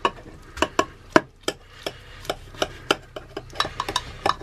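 A sharp kitchen knife cutting a baked potato gratin into portions, the blade knocking against the ceramic baking dish in a quick, irregular run of sharp clicks.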